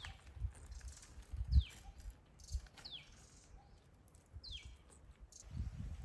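Parakeets giving short high chirps that fall in pitch, four of them spaced a second or so apart, over low thumps and knocks, the loudest thump about a second and a half in.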